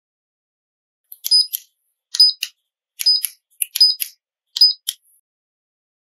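Digilock Aspire electronic keypad lock beeping as the sequence C, key, 5, 5, key is entered: five button presses, each a click with a short high beep, a little under a second apart.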